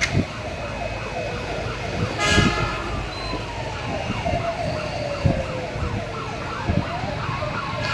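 Several emergency-vehicle sirens wailing at once, their rising and falling tones overlapping, with one long slowly falling wail in the middle. A brief louder burst comes about two seconds in, and a few dull knocks are heard.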